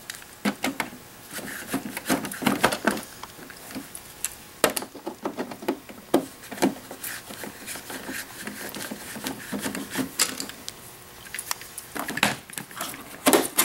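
Oval-head key turning the oval-head screws in the rear panel of a Jura Impressa S9 espresso machine: irregular small clicks and taps of metal on metal, with a few louder knocks near the end.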